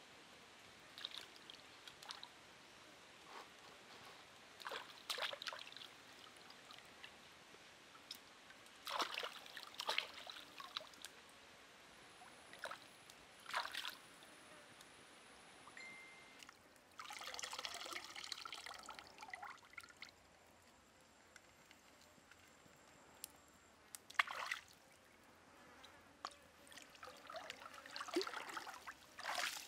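Shallow stream water splashing and trickling in irregular bursts as hands rinse seafood in it and legs wade through it, over a faint steady running-water hiss.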